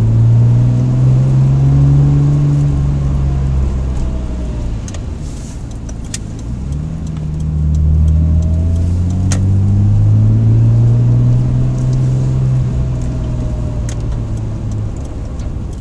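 Car engine heard from inside the cabin, pulling at low speed; its pitch rises and falls twice as the car accelerates and eases off.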